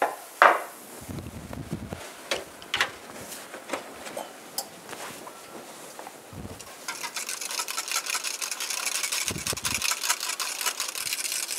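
A metal baking tray set down with a sharp knock, a few light knocks after it, then from about seven seconds in a wire whisk clattering quickly and continuously against the side of a saucepan of soup.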